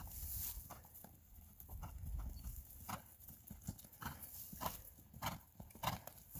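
Hoofbeats of a ridden chestnut horse on grass turf, a dull repeated beat as it moves around the field at a trot or canter.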